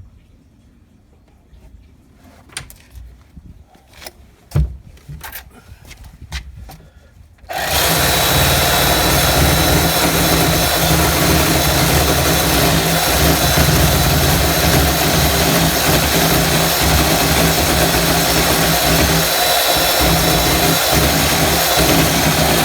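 A few light knocks and handling clicks, then about seven and a half seconds in an electric power tool starts and runs steadily, trimming the wooden edge of a gate. It cuts off suddenly at the end.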